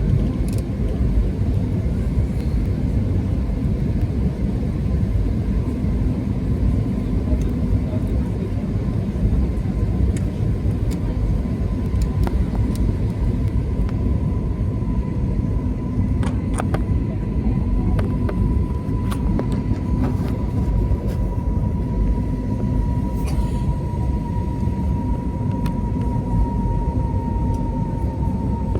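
Airliner cabin noise during landing: a steady low rumble of the engines and airflow, with a thin high whine that slowly falls in pitch. Scattered light clicks and rattles sound through it.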